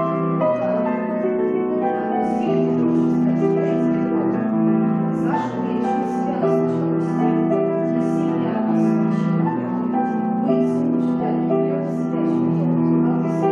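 Piano music accompanying a ballet floor-barre exercise: a steady run of held notes and chords with no pauses.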